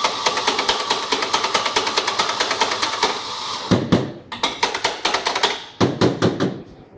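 Doser espresso grinder running while its dosing lever is flicked rapidly, about six sharp clicks a second, throwing ground coffee into a portafilter. The motor stops about three and a half seconds in, and a few separate knocks follow as the metal portafilter is tapped and set down.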